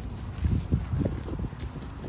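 Wind rumbling on the microphone, with a few dull low thumps in the first half.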